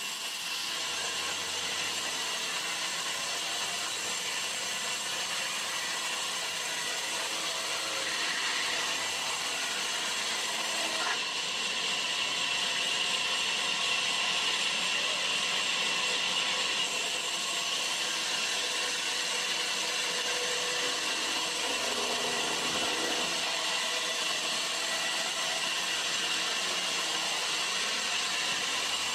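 Vertical band saw ripping a thick timber beam lengthwise. It gives a steady high whine as the blade runs through the wood, growing somewhat louder about twelve seconds in.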